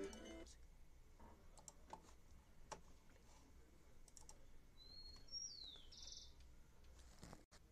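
Near silence with scattered faint clicks of a computer mouse and keyboard, after the last notes of a tiple solo end in the first half second. About five seconds in there is a short, high gliding chirp.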